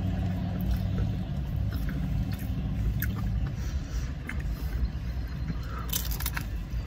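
Steady low hum of a car idling, heard from inside the cabin, with faint chewing. A few small clicks and rustles of food packaging come around six seconds in.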